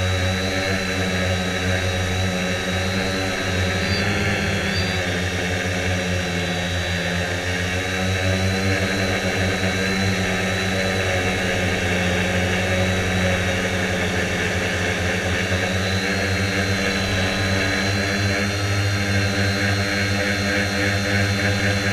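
Quanum Venture quadcopter's electric motors and propellers whirring steadily, picked up by the GoPro mounted on it: several steady hum tones with a high whine above them, shifting slightly in pitch now and then.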